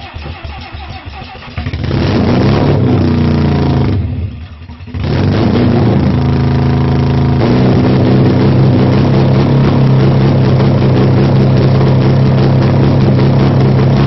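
Mazda 12A twin-rotor rotary engine, out of the car on the ground with only bare exhaust headers fitted, being started: it cranks, catches about two seconds in and revs, nearly dies about four seconds in, then picks up again and settles into a steady, loud idle.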